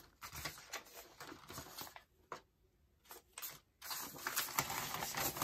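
Sheets of printed paper rustling as they are handled and leafed through, in two spells with a short pause between, the second louder.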